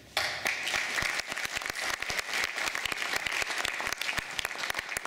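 Audience applauding: many hands clapping that start suddenly and thin out near the end.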